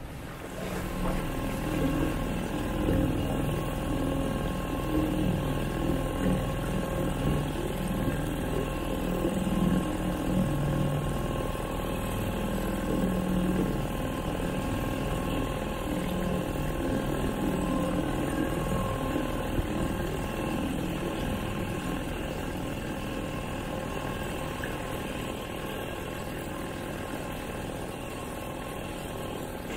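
Small outboard motor on a dinghy running steadily.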